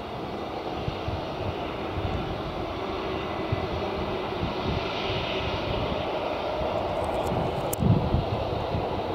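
Boeing 757-200 jet engines running at low power as the airliner rolls past on the runway after landing: a steady rumble with a whine, loudest about halfway through. A few short clicks and a brief low thump near the end.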